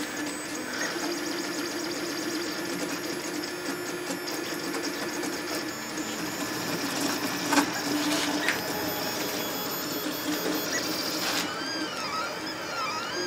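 Orcinus CoreXY 3D printer's LDO stepper motors throwing the print head around in a 600 mm/s, 35,000 mm/s² acceleration speed test: a steady mechanical buzz with shifting tones. One sharp click comes a little past the middle. Near the end comes a run of repeated rising-and-falling whines as the motors speed up and slow down on each move.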